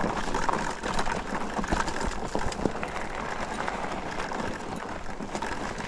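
Mukkpet electric bike ridden along a trail: steady tyre and ground noise with irregular small crackles and rattles.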